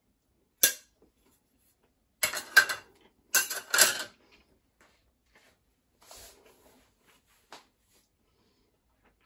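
Cutlery clinking and clattering against dishes: a single sharp click, then two quick clusters of clatter about two seconds in, a softer rattle later and one last click.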